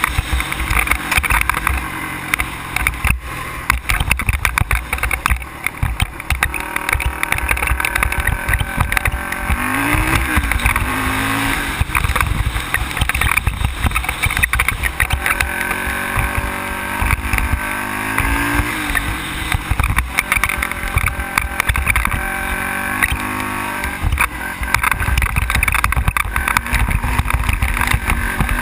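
ATV engine running while riding a rough dirt trail, its pitch rising and falling with the throttle a few times. Under it is a constant low rumble with frequent short jolts.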